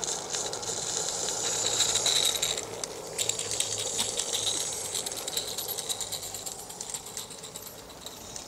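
16mm-scale live-steam model locomotive running, with rapid, fast ticking chuffs and clicks and a hiss of steam. It is loudest about two seconds in and fades as the locomotive moves away.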